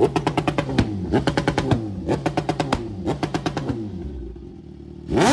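Superbike engine revving with rapid exhaust pops and crackles, dying down about four seconds in.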